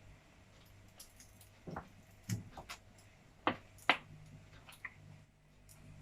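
Quiet, with a handful of soft clicks and light knocks at irregular intervals. The sharpest two come about three and a half and four seconds in.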